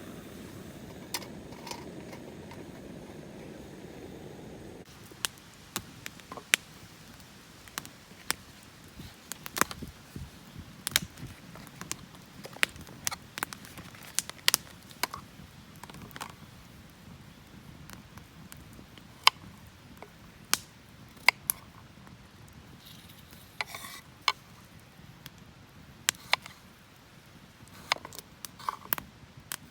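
A steady low rushing noise stops abruptly about five seconds in. It is followed by scattered, irregular sharp clicks and knocks, like small hard objects being handled and set down.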